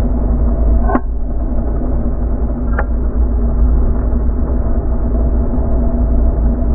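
Muffled Dafra Next 250 motorcycle engine running steadily under a heavy low rumble. Two short chirps come about a second and about three seconds in.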